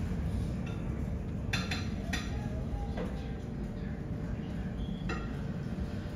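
A steady low rumble with three light, sharp clinks like glass or dishes, about a second and a half, two seconds and five seconds in.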